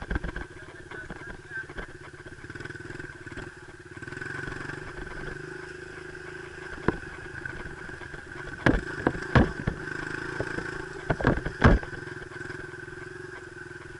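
A dirt bike engine idling steadily, with a run of sharp knocks or clatters about two-thirds of the way through.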